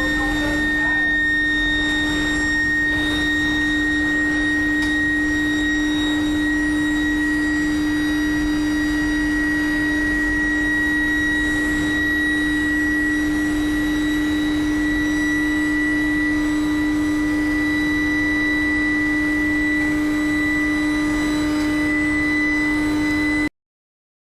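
Induction billet heating furnace running: a steady low hum with a high whine over it and a rushing background noise, cutting off suddenly near the end.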